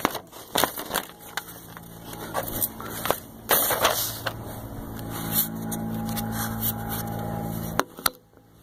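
A sheet of paper handled and laid down on asphalt: rustling, crinkling and scraping with a string of sharp clicks. In the second half a low steady hum runs underneath and cuts off suddenly near the end.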